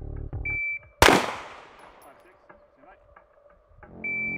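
A shot timer beeps once, and about a quarter second after the beep ends a single pistol shot cracks and rings out across the range. Near the end the timer beeps again to start the next run.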